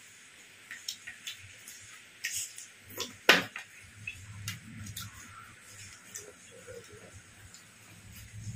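Eating at the table: scattered sharp clicks and light clinks of hands and utensils against a plate, the loudest a little over three seconds in.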